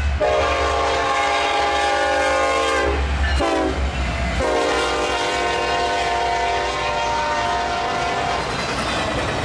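Locomotive air horn sounding a chord of several tones: a long blast, a short blast about three seconds in, then another long blast.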